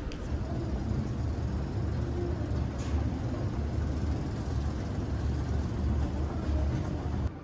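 Escalator running underfoot: a steady low mechanical rumble.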